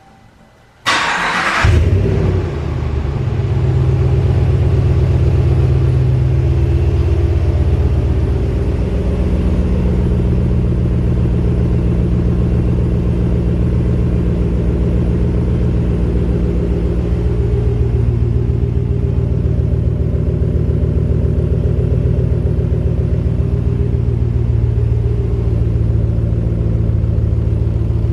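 2020 Ram 1500's 5.7-liter Hemi V8 cold-starting through a mid-muffler delete with the stock resonators still in place: a brief starter whir about a second in, then the engine catches with a flare of revs and settles into a steady cold idle.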